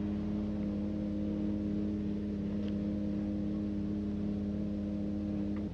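A steady electronic drone of several held tones at once, even in level throughout, cutting off suddenly near the end.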